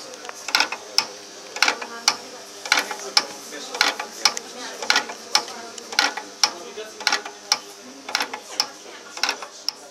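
Relays in a railway signal box relay room clicking in a steady rhythm as a mercury relay operates, a pair of sharp clicks about once a second, over a faint steady hum.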